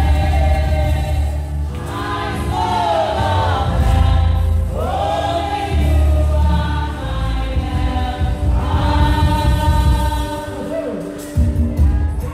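Church choir singing a Nigerian gospel song in chorus over amplified band accompaniment with a heavy bass line.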